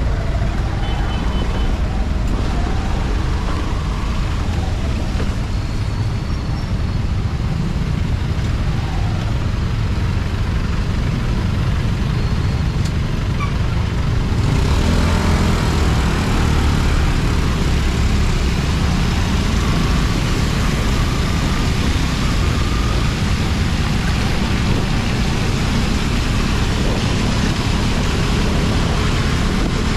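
Steady motorcycle ride noise in traffic: engine and road noise with a heavy low rumble. About halfway through, the high hiss grows suddenly louder and stays up.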